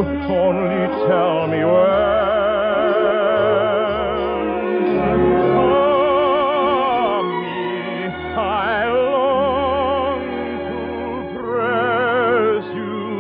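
Operatic singing from an operetta: a trained voice with wide vibrato holding long notes over sustained musical accompaniment.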